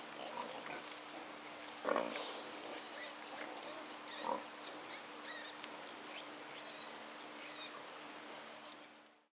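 Wild boar grunting: two short grunts, about two and four seconds in, over a faint steady hum, with a few faint high chirps after them. The sound fades out just before the end.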